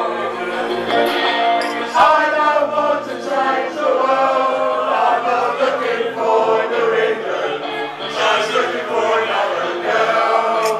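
A crowd singing along together with a man singing into a microphone, many voices holding notes at once.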